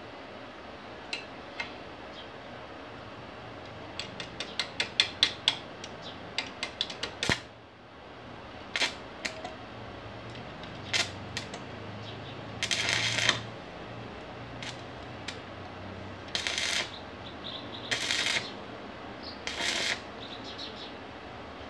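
Stick (arc) welder tack-welding a broken steel chair frame: a quick run of sharp metallic clicks as the electrode is tapped on the joint to strike the arc, then several short crackling arc bursts of about half a second each.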